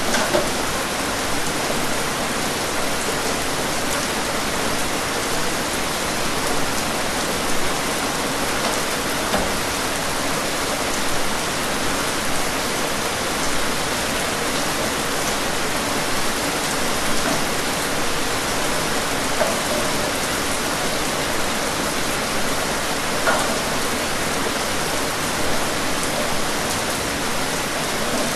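Steady rain falling, an even hiss with scattered drop taps.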